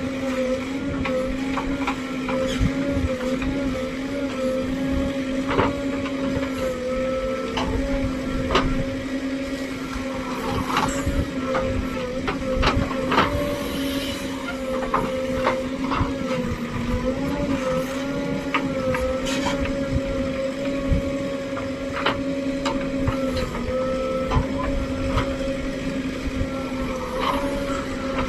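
JCB backhoe loader's diesel engine running steadily under load, its pitch dipping slightly now and then as the hydraulics work, with scattered knocks and clanks throughout.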